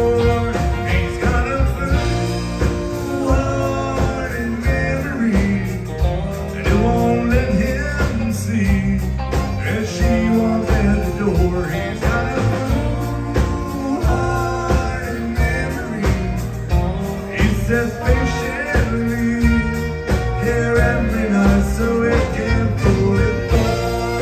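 A live country band playing, with fiddle over acoustic guitar, bass guitar and a drum kit.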